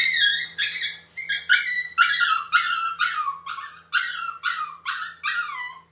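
Shih Tzu puppy yelping in a rapid string of short, high cries, about three a second, each sliding down in pitch: a distressed protest at being held for grooming.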